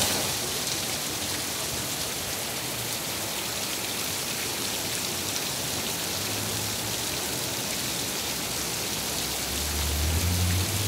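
Heavy rain falling steadily on a paved street covered in standing water, an even hiss of countless drops.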